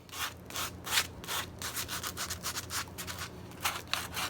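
Sandpaper wrapped on a hand-held foam sanding pad being rubbed by hand over wood in quick back-and-forth strokes, several a second.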